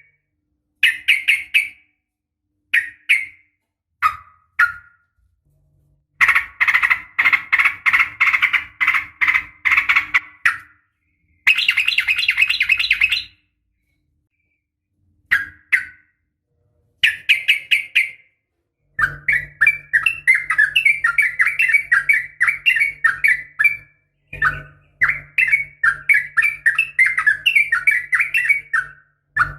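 Yellow-vented bulbul calling: loud, bubbly chattering phrases. Some come as short bursts of a second or less, some as long unbroken runs of several seconds, with complete silence between them.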